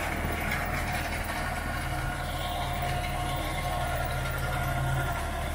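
New Holland 3630 tractor's three-cylinder diesel engine running steadily at low revs, about 1300 rpm, pulling a Jagatjit super seeder whose rotor churns through the stubble.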